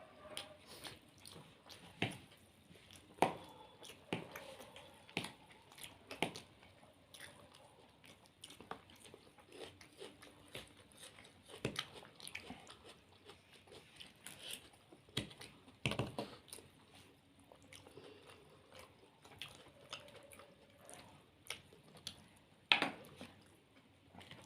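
Close-up eating sounds from momos and chilli potatoes: chewing and biting, with irregular wet clicks and smacks, a few of them louder.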